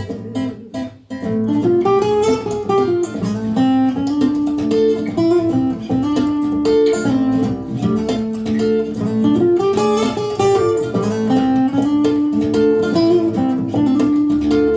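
Instrumental break of a song: an acoustic guitar plays a melodic solo over a steady rhythmic accompaniment.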